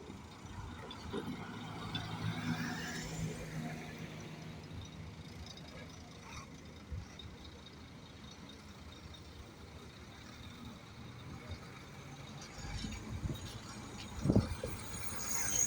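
Engine of a heavy construction vehicle running. It swells over the first few seconds, then eases to a low steady rumble, with a few louder low thumps near the end.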